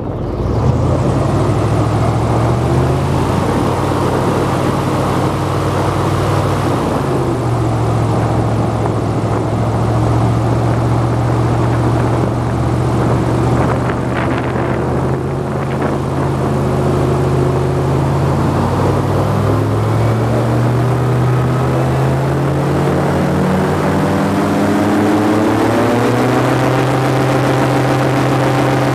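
Airboat's engine and air propeller running steadily at speed, with its pitch climbing gradually over the last third as the engine speeds up.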